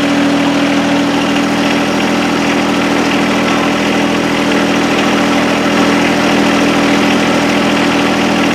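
John Deere 1025R compact tractor's three-cylinder diesel running steadily at idle, a little over 1,500 rpm, with the PTO engaged and the snowblower turning.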